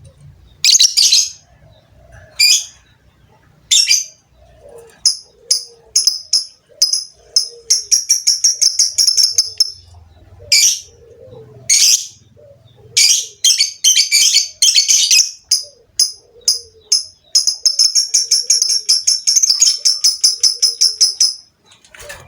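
Lovebird calling: sharp, high-pitched chirps that break several times into fast chattering trills of rapidly repeated notes, the longest lasting about four seconds near the end. These long trills are the "ngekek" song that lovebird keepers prize.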